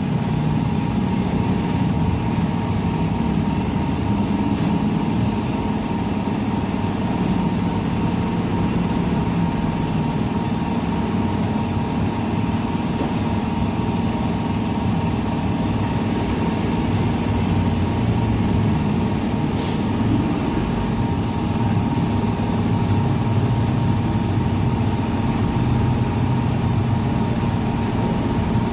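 Steady low mechanical rumble with a constant faint whine above it, like an engine or machine running nearby without change.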